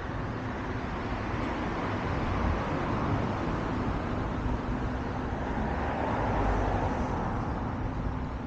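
Road traffic noise: a steady hiss and rumble of vehicles and tyres, swelling twice, about three seconds in and again around six to seven seconds in.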